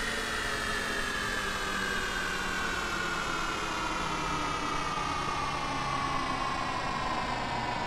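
Science-fiction spaceship landing sound effect: a steady engine-like hum under a whining tone that slowly falls in pitch.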